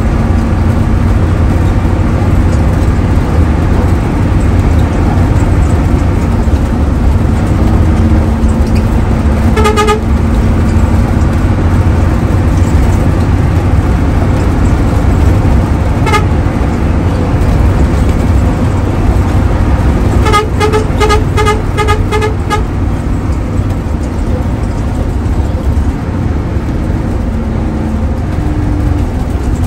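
Hino AK8 bus's engine and road noise, a steady low drone inside the moving bus. Horn honks cut in over it: a short toot about ten seconds in, another around sixteen seconds, and a quick string of about eight toots a little after twenty seconds.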